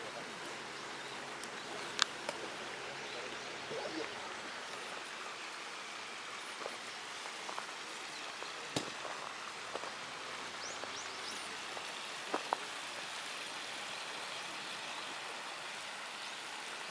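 Steady splashing hiss of water from a pond's spray fountain aerator, with a few short sharp clicks.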